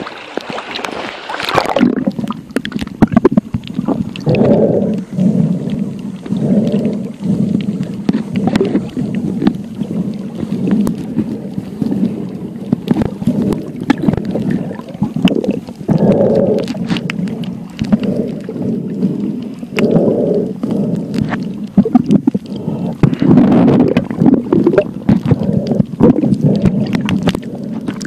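Muffled underwater sound picked up by a phone in the sea: water sloshing and rumbling against the phone, with frequent small clicks and knocks. It is brighter for the first second or so, then dull and low.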